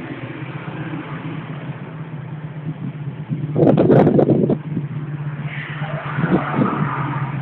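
Small four-stroke single-cylinder mini motorcycle engine idling steadily, revved sharply once for about a second some three and a half seconds in.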